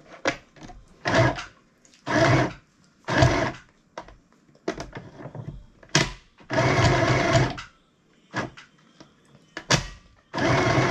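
Mini electric sewing machine running in short spurts as it stitches fabric: about five runs of the motor and needle, the first few about half a second each and the later ones about a second, with a few sharp clicks between runs.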